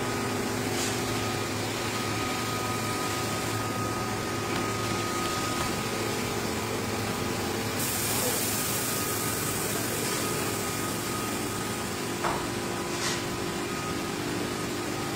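Steady hum of workshop machinery with several held tones. A hiss of air comes in for about two seconds around the middle, and there are a couple of faint knocks near the end.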